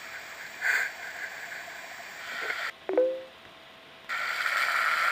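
A person snoring in sleep: rough, noisy breaths that swell and fade every few seconds, the loudest one near the end. A brief, sharp, pitched sound is heard about three seconds in.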